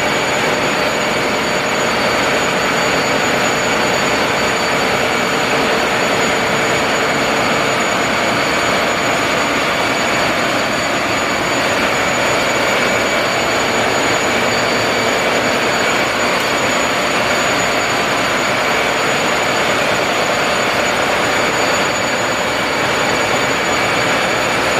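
Loud, steady machinery noise of a ship's engine room, running engines with a constant hiss and several steady high whines layered over it.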